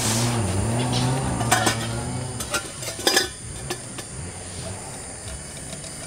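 A few sharp knocks and clatters, with a steady high-pitched insect drone behind them.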